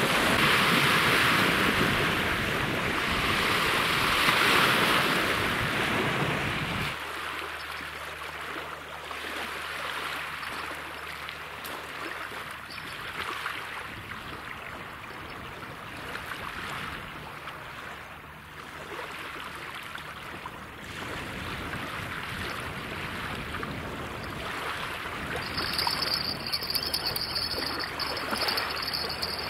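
Steady rushing outdoor noise with no clear source, loud for about the first seven seconds and then quieter. Near the end an insect's steady high trill starts up.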